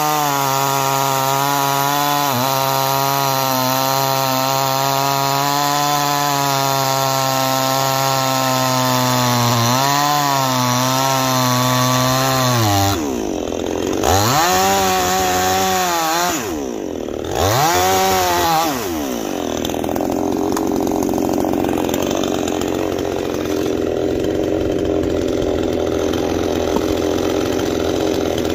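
Neo-Tec NCS5800 58cc two-stroke chainsaw held at a steady high pitch at full throttle while cutting through an ash log. About thirteen seconds in, the throttle is let off and blipped twice, the pitch falling and rising, and then the saw runs on at idle.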